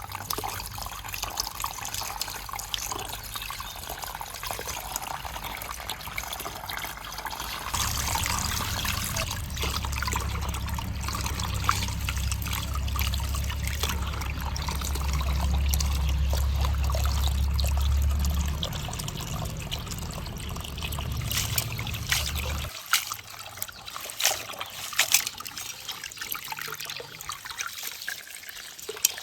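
Water trickling steadily. A low rumble joins it about eight seconds in and cuts off suddenly some fifteen seconds later.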